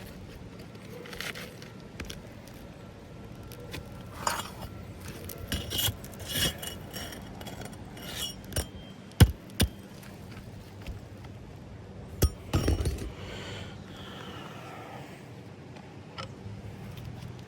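Intermittent clinks, taps and scrapes of hand work with tools and shingles, with a sharp knock about nine seconds in and another short cluster of knocks and scraping around twelve seconds in.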